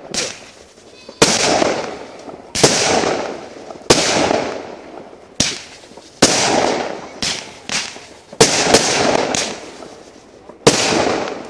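Consumer firework cake (a 'compact') firing its shots one after another, about ten in all, roughly one a second. Each shot is a sharp report followed by a fading hiss as the comet climbs.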